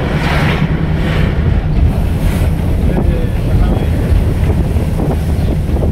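Wind buffeting the microphone: a loud, low, uneven rumble with brief gusts of hiss.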